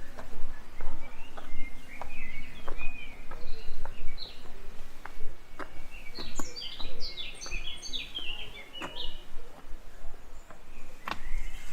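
Songbirds singing: twittering phrases, then about six seconds in a quick run of notes stepping downward. Under them runs a steady low hum, with scattered sharp taps.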